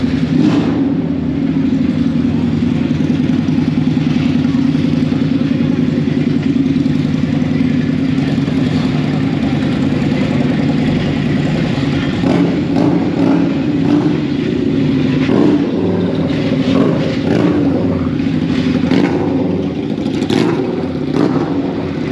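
Engines of American show cars running at low speed as they drive out, a loud, steady, deep engine sound. Several short, sharper sounds come over it in the second half.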